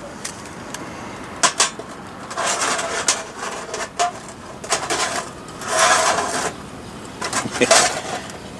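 Hands working the metal burner gear: a couple of sharp clicks, then short scraping, clattering rustles, over a steady hiss.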